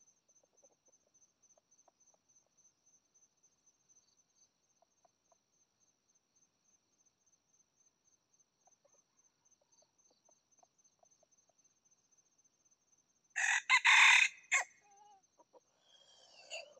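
A junglefowl rooster crows once, loud and a little over a second long, near the end, followed by a short note and a fainter call. Faint steady cricket chirring runs underneath.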